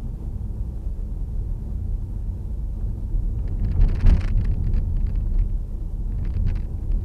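Car engine and road noise heard from inside the cabin while driving, a steady low rumble. About four seconds in there is a short burst of rattling clicks, the loudest moment, with a few lighter clicks near the end.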